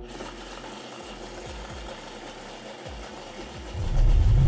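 Countertop blender running, chopping parsley in oil; it grows much louder about four seconds in.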